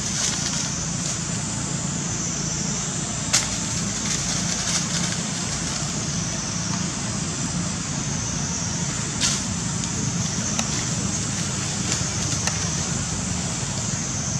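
Steady outdoor background noise: a low rumble under a continuous high-pitched hiss, with two sharp clicks about three and nine seconds in.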